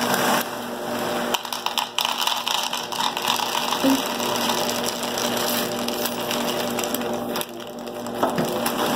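A large plastic bag crinkling as small chocolate cereal balls are poured from it, rattling into a plastic cup.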